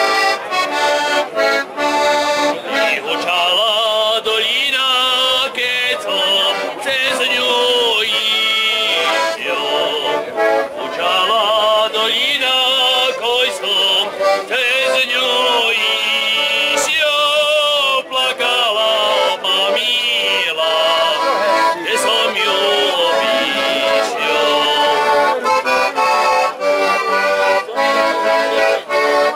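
Accordion playing a continuous traditional folk tune, with quick trills in the upper notes over a steady rhythmic accompaniment.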